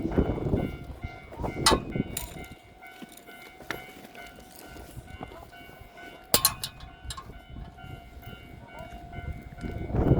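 Train at a station platform: a low rumble that eases off in the middle and swells again near the end, with a steady electrical hum and a few sharp metallic clanks.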